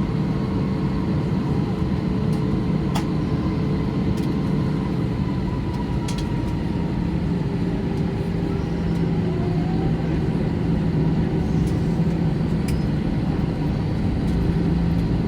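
Steady drone inside the cabin of an Airbus A321 on the ground, the hum of its CFM56 engines and air system, with a few faint clicks.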